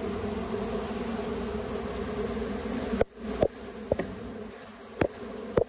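Honeybees from a package buzzing in a steady mass hum. After about three seconds the hum drops and four or five sharp knocks follow as the bees are tapped down into the hive.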